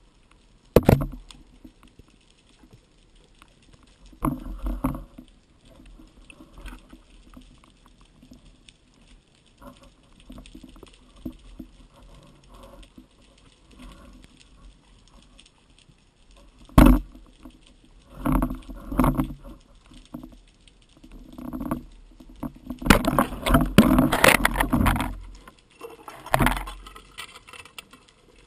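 Muffled underwater knocks and rushing bursts from a freediving spearfisher's movements and his speargun-mounted camera and gear. They come irregularly, with a longer, louder run toward the end.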